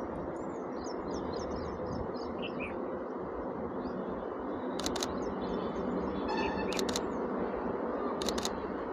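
Small birds chirping and trilling over a steady outdoor background noise, with three short bursts of sharp clicks in the second half.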